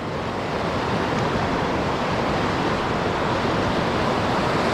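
Steady rush of a fast mountain creek running high with snowmelt, a continuous full-bodied hiss of water without breaks.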